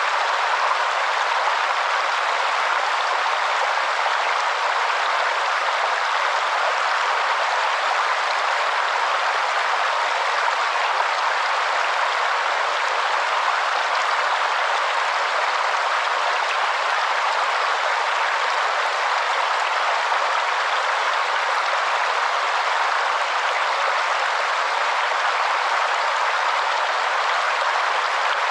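Waterfall: steady falling water heard as an even hiss, with little low rumble.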